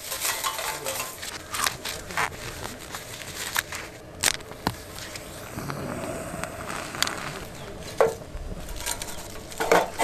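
Bone-dry fallen leaves, pine needles and twigs crunching and rustling as gloved hands pack them into a small metal fire tray, then crackling as a small fire catches. Sharp snaps and clicks come throughout, the loudest about eight seconds in and near the end.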